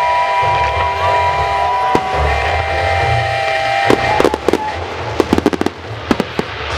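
Display fireworks going off: sharp bangs and crackles from about four seconds in, with a fast cluster of reports about five seconds in. Over the first half, several held steady tones sound over a low rumble.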